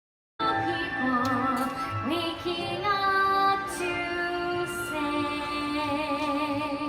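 Stage-musical music: an orchestra under a woman singing long held notes with vibrato, starting after a brief moment of silence.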